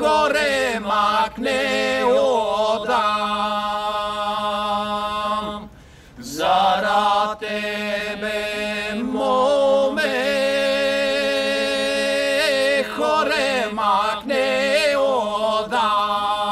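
Three men singing a Pirin (Bansko) folk song a cappella in two-part style: one voice carries an ornamented, gliding melody while the others hold a steady drone beneath it. The singing breaks briefly about six seconds in, then the voices return with a rising glide.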